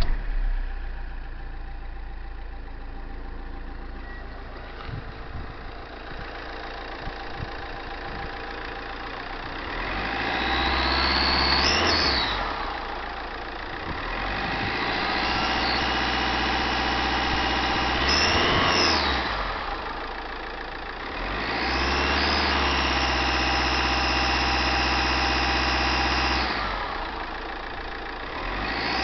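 Fiat Stilo Uproad engine just after starting, idling and then revved about four times, with a high-pitched turbo whistle that rises and falls with the revs. The owner says the Garrett GT1749V variable-geometry turbo whistles abnormally for several minutes after starting. He suspects the valve that controls the variable geometry, or sticking vanes.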